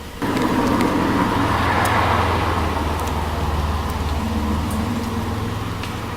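A motor vehicle's engine running close by: a steady low hum that comes in suddenly about a quarter second in, strongest around two seconds, then slowly easing off.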